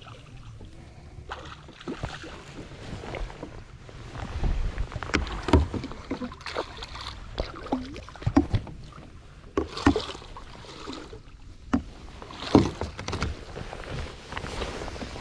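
Irregular knocks and clatter aboard a fishing boat, over a steady low rumble.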